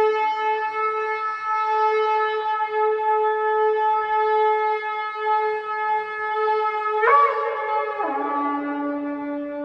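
A long spiralled Yemenite shofar blown in one long steady blast, rich in overtones, for about seven seconds. It then jumps briefly to a higher note and, about a second later, drops to a lower note that it holds.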